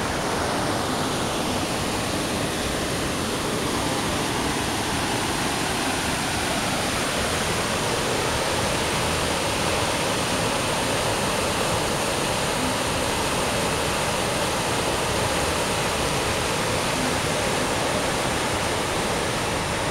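Mountain river rapids rushing over rocks: a steady, even sound of white water.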